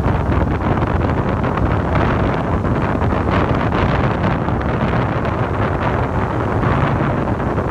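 Wind buffeting the microphone in steady gusts, over the wash of small ocean waves breaking and running up the shore.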